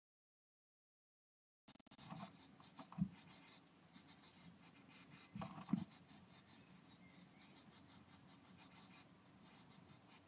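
Blue tit chicks shifting in the nest material inside a nest box: a rapid run of faint scratching and rustling, with two soft thumps about three and six seconds in. It opens with about a second and a half of dead silence.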